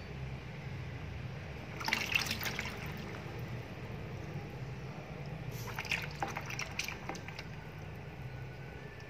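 Water dripping and splashing into a plastic basin in two short spells as a wet frog is handled, over a steady low hum.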